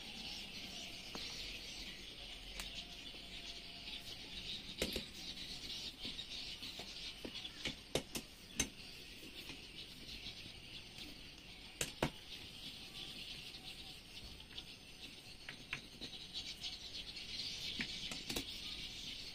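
Scattered sharp metal clicks and clinks of a hand socket tool working the bolts of a Yamaha 40 hp outboard powerhead, a few seconds apart, over a steady high-pitched hiss in the background.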